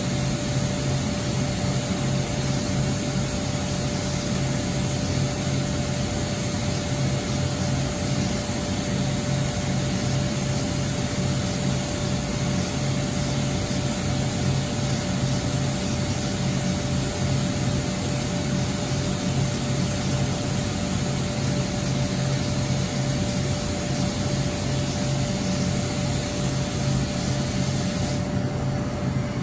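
WFL M35G Millturn CNC turning center running inside its enclosure: a steady hiss over a constant low hum and a thin steady tone. The higher part of the hiss drops away about a second before the end.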